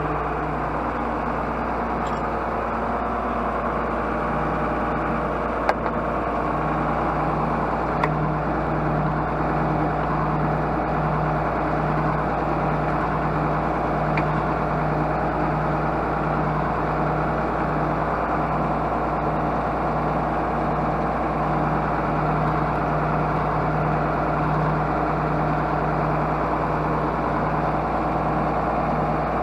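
John Deere six-cylinder diesel tractor engine running steadily at an even speed, with a couple of short clicks about six and eight seconds in.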